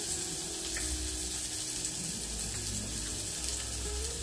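Chopped vegetables, green chillies and spices sizzling steadily in hot oil in an open aluminium pressure cooker on a gas burner.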